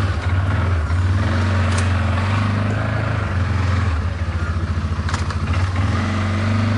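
CFMoto CForce 550 ATV's engine running steadily, with a low, even note and a light rattle of noise over it.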